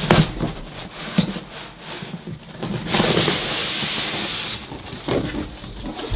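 Cardboard packaging box being handled and slid up off a computer case packed in polystyrene foam end caps. Scattered rustles and knocks come first, then about three seconds in a steady scraping hiss of cardboard rubbing over the foam lasts about a second and a half.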